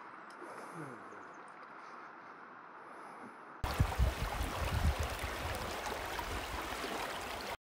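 Creek water running steadily around a wading angler. About three and a half seconds in, the sound suddenly turns louder and rougher, with low rumbling from water being worked close by as a trout is landed by hand. It cuts off abruptly near the end.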